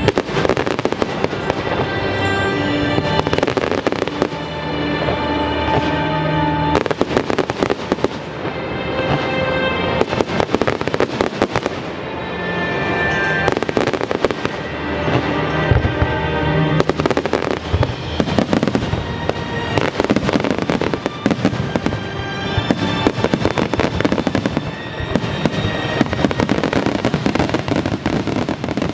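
Fireworks finale: a dense, irregular barrage of bangs and crackles, with a musical soundtrack playing underneath.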